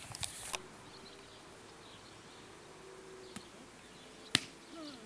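A volleyball struck by hand: a light tap about three seconds in, then a sharp smack about four seconds in, over a faint steady buzz.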